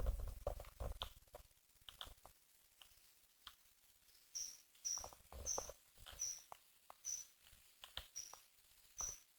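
Faint clicks and rustling, then a run of short, high chirps repeating about every half second to a second from about four seconds in.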